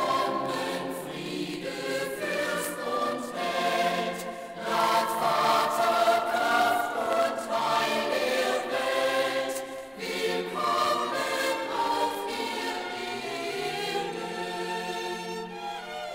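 Choir singing Christmas choral music, played back from a vinyl LP on a turntable. One sung phrase ends and the next begins about ten seconds in.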